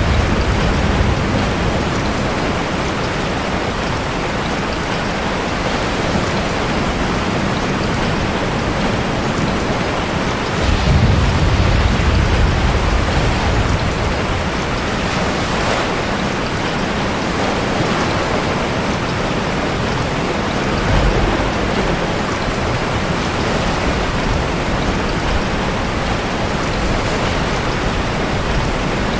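Steady heavy rain with ocean waves, a deep low rumble swelling up about every ten seconds as the surf surges.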